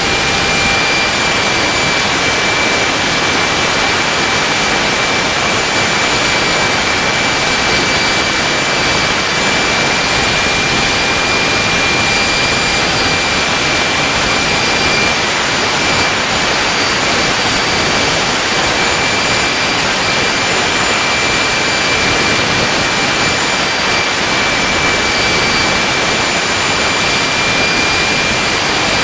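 Homemade turbojet engine running steadily at speed: a loud, even rush of jet exhaust with a steady high whine over it that holds its pitch throughout.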